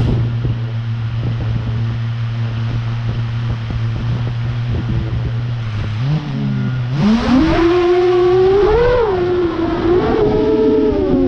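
Eight-motor FPV quadcopter's motors and propellers idling with a steady low hum. About seven seconds in they throttle up for takeoff, and the whine climbs in pitch, then rises and falls with the throttle in flight.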